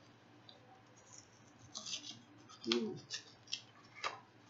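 Paper pages of a handmade journal rustling and crackling as stuck pages are pulled apart and handled: quiet at first, then a few crisp rustles and sharp clicks in the second half.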